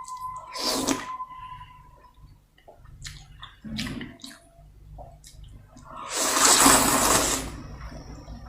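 Close-miked eating sounds of noodle soup being slurped: short slurps about half a second and four seconds in, then a longer, louder slurp from about six to seven and a half seconds, with small mouth clicks between.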